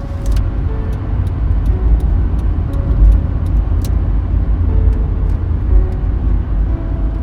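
A steady low rumble like a car on the road, with scattered light clicks over it.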